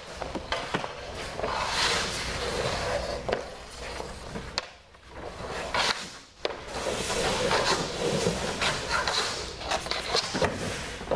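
Hockey goalie's skates and pads scraping and sliding on the rink surface as he moves across the crease, with several sharp clacks of stick on puck.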